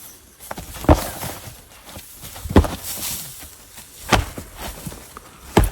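Four heavy, dull thumps at fairly even intervals, about a second and a half apart.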